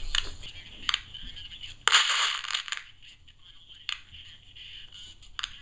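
Static crackles from lightning picked up by an AM radio: several sharp clicks, and one loud crash of noise about two seconds in that lasts under a second, each one the electrical discharge of a distant strike.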